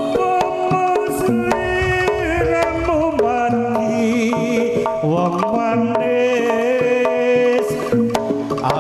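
Live Javanese jaranan ensemble playing: hand drums beating a steady pattern under a held, gently bending melody line, with sustained gong and metallophone tones.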